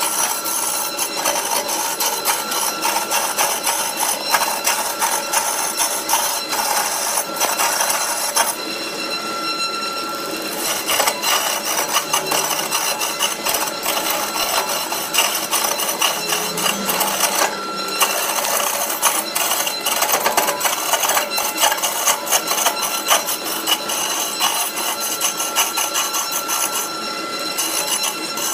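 Wood lathe turning a large wooden block while a hand-held gouge cuts it: a dense, rapid scraping chatter of the tool on the spinning wood. It eases off briefly three times, where the cut pauses.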